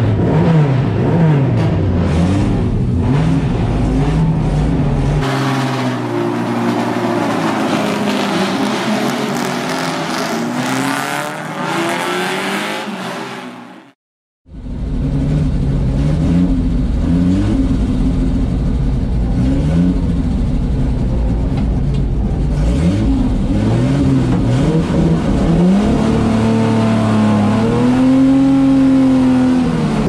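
Vintage racing car engines revving up and down, heard from inside the cockpit, with the pitch climbing and dropping repeatedly. The sound cuts out sharply for a moment about halfway through, then the engine revs again, with a long climb near the end.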